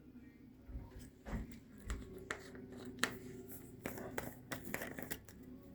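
Scattered small clicks, taps and rustles of hands handling kitchen containers and packaging, over a low steady hum.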